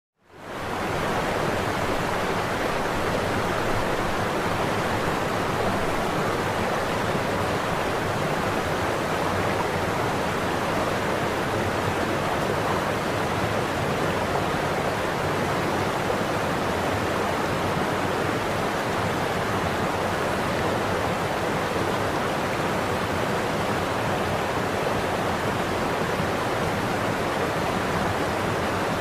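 Waterfall: a steady rushing of falling water that fades in over the first half second and then holds even.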